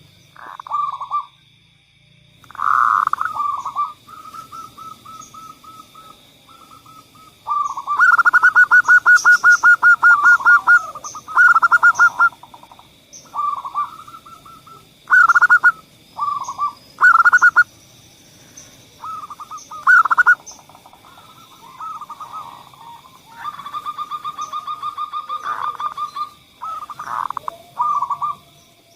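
Zebra doves (perkutut) cooing: repeated phrases of short coos and fast rolling trills, some phrases loud, some soft. A faint steady high-pitched tone runs underneath.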